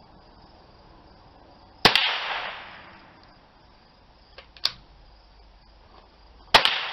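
Two small-bore .22 rimfire rifle shots, about five seconds apart, each a sharp crack followed by a short echo. A fainter sharp click falls between them.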